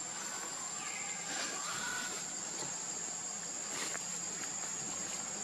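Outdoor ambience dominated by a steady, high-pitched insect drone, with a couple of faint short chirps about a second and two seconds in.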